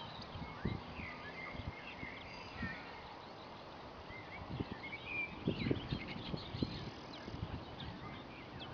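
Small birds chirping and twittering in the background, many short quick calls overlapping, with a few soft low thumps scattered through.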